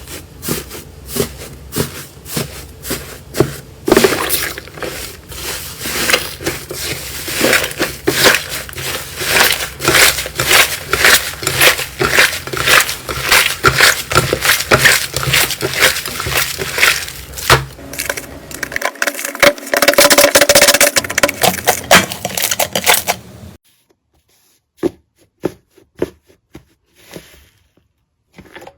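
Slime being squeezed and pressed by hand: a dense run of crackling, popping clicks. About 23 seconds in it cuts abruptly to a quieter stretch of scattered single clicks and pops.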